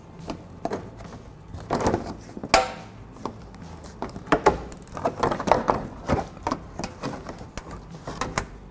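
Irregular plastic clicks and knocks as a forked body clip tool pries a plastic push clip out of a Toyota Camry's plastic engine splash shield and the shield is handled and pulled down. One sharper knock about two and a half seconds in.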